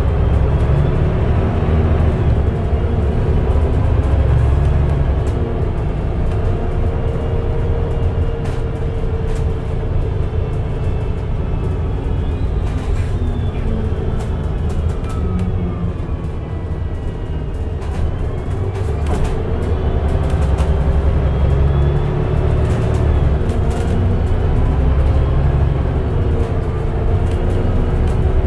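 Mercedes-Benz O405NH bus with a Voith automatic gearbox running: a deep, steady engine drone under a whine that falls in pitch about halfway through and then climbs again.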